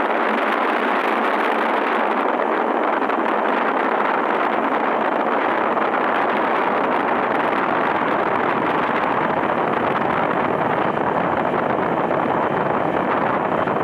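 Small boat's outboard motor running steadily at speed, heard within the rush of the churning wake and wind on the microphone.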